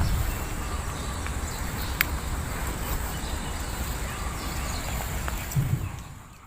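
Steady low outdoor rumble with a single sharp click about two seconds in; the sound fades out near the end.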